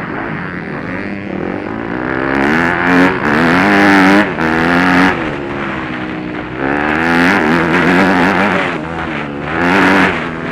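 Motocross bike engine heard from on board, revving up and falling back again and again as the rider accelerates and shuts off through the bends. Gusts of wind noise hit the microphone at the fastest moments.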